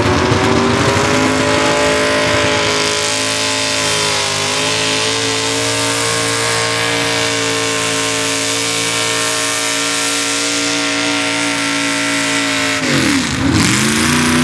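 Mini pickup pulling truck's engine running at full throttle through open vertical exhaust stacks as it drags a weight-transfer sled, holding high revs with a brief dip about four seconds in. About thirteen seconds in the revs drop sharply as the throttle is released, then rise and fall once more.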